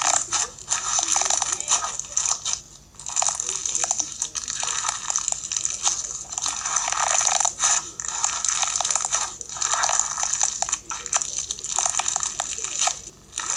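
Fishbowl slime, clear slime packed with small plastic fishbowl beads, being squeezed and pressed by hand: dense crunching and crackling in repeated bursts with short pauses between.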